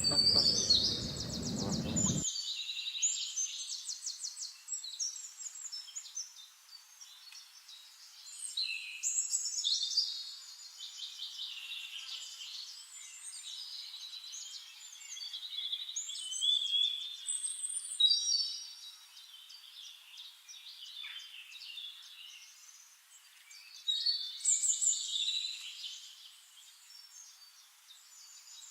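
Several small songbirds chirping and trilling, in bursts that come and go every several seconds.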